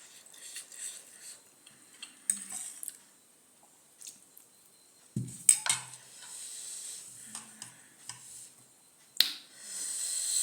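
Cutlery clinking against dishes while eating, in scattered sharp clicks, with a dull knock about five seconds in. A hiss starts suddenly near the end.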